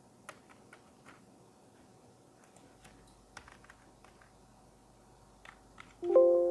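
Computer keyboard keys clicking sparsely and irregularly. Near the end a loud ringing tone of several notes starts suddenly and slowly fades.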